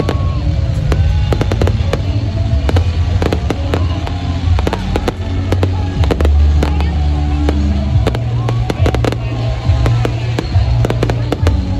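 Fireworks display with rapid, irregular bangs and crackles, over music with a steady bass.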